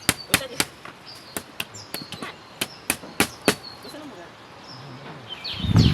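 Quick, sharp chopping strikes of a garden hand tool into soil and weeds, about three a second at first and then more spaced out, with birds chirping. A low rumble swells near the end.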